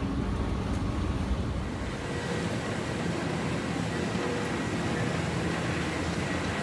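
Steady mechanical hum and hiss of an underground metro station heard from a descending escalator. A faint high steady whine joins about two seconds in.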